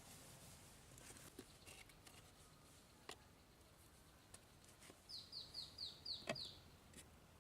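A small bird calling a quick run of six short falling notes about two-thirds of the way in, over near silence, with a few faint sharp clicks and one louder knock near the end of the run.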